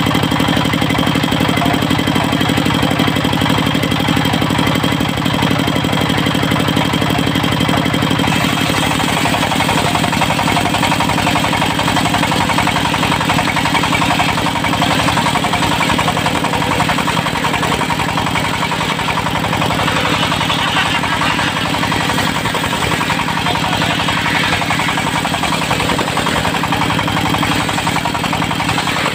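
Diesel engine of a portable circular sawmill (serkel) running steadily. About eight seconds in, the sound turns harsher and noisier and stays that way.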